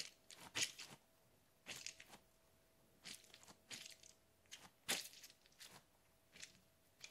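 Rubbery stress balls, one a mesh-wrapped ball packed with water beads, squeezed and kneaded in the hand, giving short soft crunchy squelches about once or twice a second.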